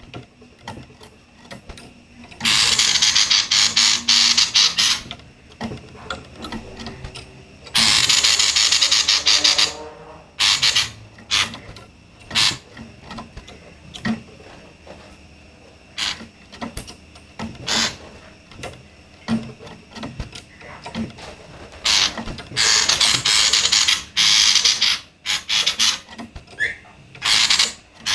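Female common iora giving harsh, rapid rattling 'konslet' calls: three long buzzing rattles of about two to three seconds each, with short single chips and brief rattles scattered between.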